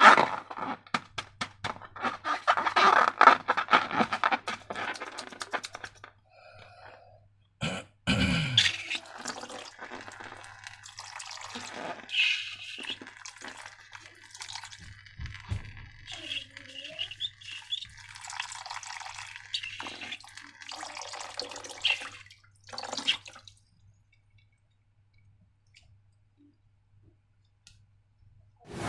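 Sticky slime being squished and handled, with wet squelching, dripping and crackling clicks that are densest for the first few seconds, then grow sparser and stop several seconds before the end.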